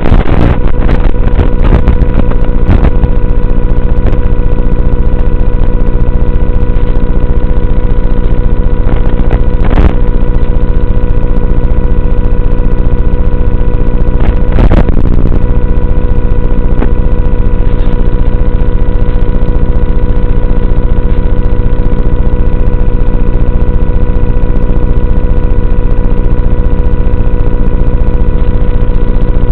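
Electric brushless motor and propeller of a small foam flying wing running at steady throttle, loud and close to the mic, a constant drone that holds its pitch. A couple of brief clicks come through, one about ten seconds in and one about fifteen seconds in.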